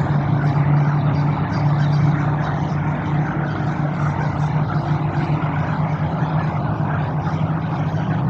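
Steady hum of road traffic or a running motor vehicle, a constant low drone over an even wash of noise.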